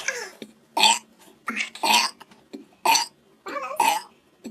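A person burping, a series of short burps about one a second.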